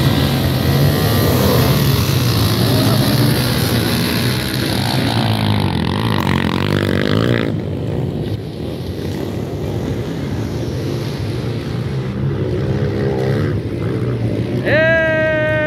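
A pack of motocross dirt bike engines revving hard and wavering in pitch as the field races away from the start. About seven and a half seconds in the sound changes abruptly to fainter engines running, and near the end a loud drawn-out voice comes in over them.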